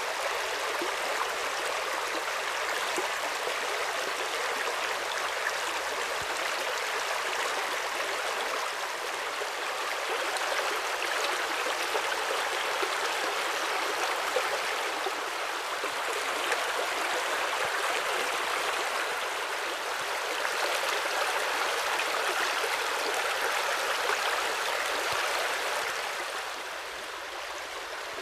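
River rapids rushing steadily, a little quieter near the end.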